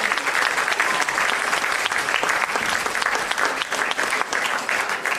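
Audience applauding: a dense, steady clapping from a hall full of people.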